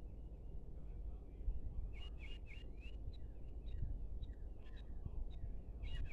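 Birds giving short, quick chirping calls, a few at first and then in clusters from about two seconds in, over a steady low rumble of outdoor background noise.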